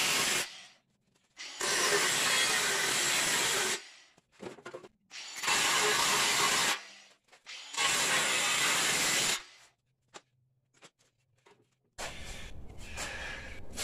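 Angle grinder with a thin cut-off wheel cutting through the sheet-steel edge of a riding-mower fender. It runs in four bursts of one to two seconds each, with near silence between them.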